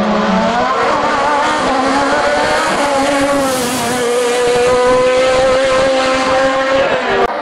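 Race car engine at high revs accelerating hard, its pitch rising and stepping down at gear changes before climbing again. The sound changes abruptly near the end.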